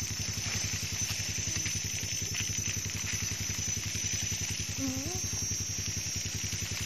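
A small engine running steadily at idle, a fast even throb with a steady high whine over it.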